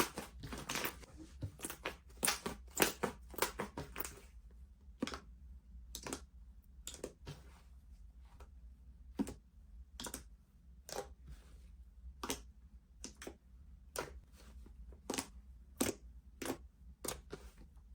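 Soft slime being squeezed and poked by hand, giving small crisp pops and crackles: a dense run over the first few seconds, then scattered single pops about once or twice a second.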